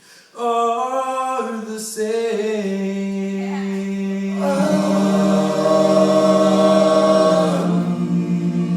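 An a cappella vocal group singing without instruments, several voices holding long sustained chords that shift a few times. It starts after a brief pause at the very beginning.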